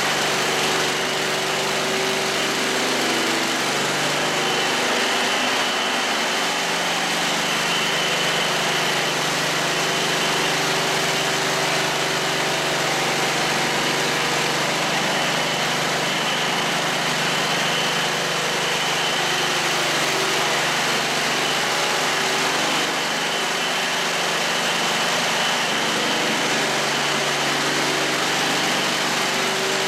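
Gasoline-engine EDCO concrete floor grinder running steadily as its disc grinds a concrete floor: a constant engine note under a steady high whine and hiss, the pitch dipping briefly about five seconds in.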